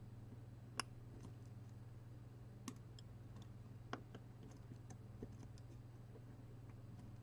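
Near silence over a steady low electrical hum, broken by a few faint sharp clicks and small ticks, the clearest three about a second or two apart.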